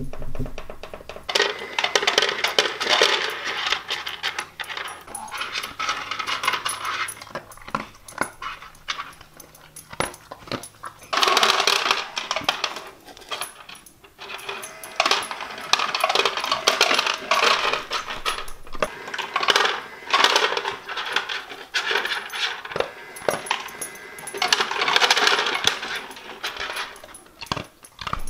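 Dogs eating dry kibble out of a plastic feeder tray: irregular crunching, with pieces of kibble clattering against the plastic in uneven bouts.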